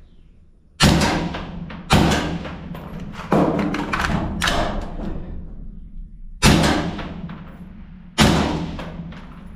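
Six rifle shots from a scoped AR-style rifle fired through a port inside a corrugated steel shipping container, spaced roughly one to two seconds apart, each with a long echoing tail.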